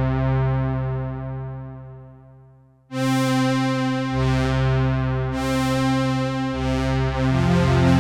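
Sequential Prophet-6 analogue polyphonic synthesizer playing sustained chords from a factory preset. The first chord fades out over about three seconds, growing darker as it dies. Then a bright new chord starts suddenly, and the chords change about every second after that.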